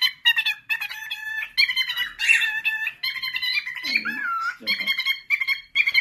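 Cockatiel chattering and warbling: a fast run of short, clipped notes, with a wavering whistle about two-thirds of the way through.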